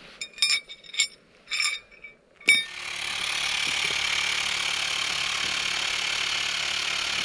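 Several sharp metallic clinks with a ringing tone, then a louder click about two and a half seconds in, after which a steady rushing noise sets in and holds.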